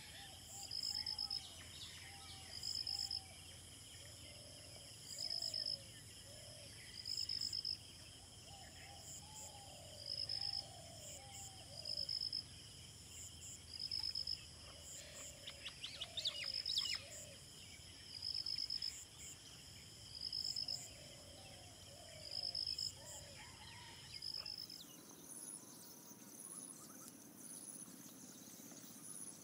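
Wetland evening ambience: an insect chirping in a steady repeating pulse, one short high chirp about every second and a half, over lower wavering animal calls. About halfway through comes a quick run of clicks, and near the end the chirping changes to a higher, faster chirp.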